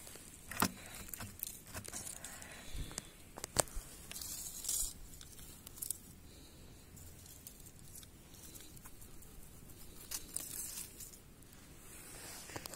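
Faint crackling and rustling of dry leaves and twigs, with scattered sharp clicks, mostly in the first five seconds and again briefly near the end, with quieter stretches between.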